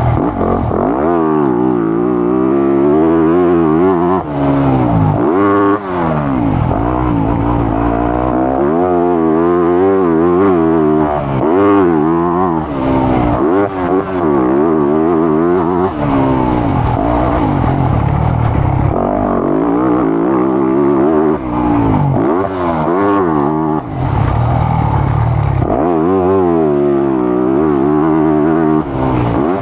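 Motocross bike engine revving up and dropping off over and over as the rider works the throttle and gears around the track. Its pitch climbs and falls again every second or two, heard up close from a camera on the bike.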